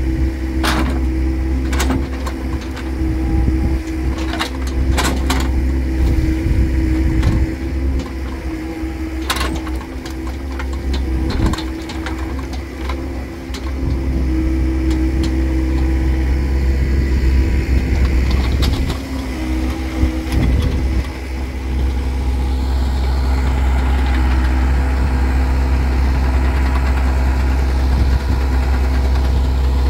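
Doosan mini excavator's diesel engine running steadily under hydraulic load while the bucket digs wet soil, with several sharp knocks in the first ten seconds. It runs steadier and louder over the last several seconds.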